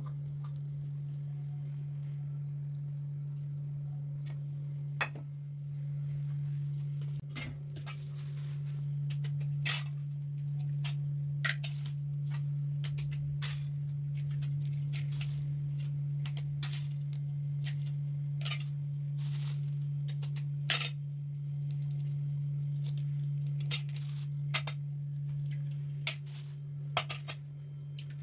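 A steady low hum throughout, with a scattered series of sharp taps and clicks: eggs being cracked against the rim of a steel bowl.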